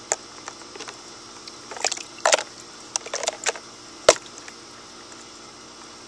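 Small splashes of water and light knocks of a plastic toy boat being handled in a plastic kiddie pool, coming in short separate bursts, with the sharpest knock about four seconds in.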